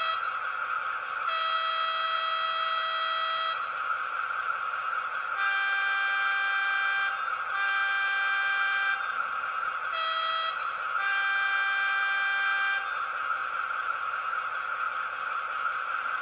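A model locomotive's sound decoder playing a DB class 216 diesel's horn through the model's small speaker. There are five blasts in two pitches: a long low one, two high ones, a short low one, then a high one. Underneath runs the steady idle of the Maybach engine sound.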